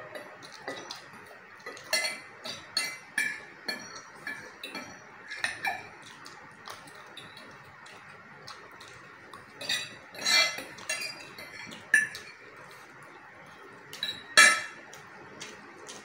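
Cutlery clinking against dishes while eating, a scatter of irregular sharp clinks with quieter gaps; the loudest come about ten and fourteen seconds in.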